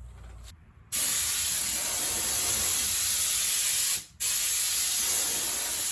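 Compressed-air paint spray gun spraying automotive paint in two long bursts, about three seconds and then about two and a half seconds, with a brief stop between them.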